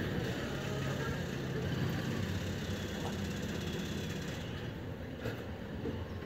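A pickup truck driving past, its engine hum strongest in the first couple of seconds and then fading, over steady street noise.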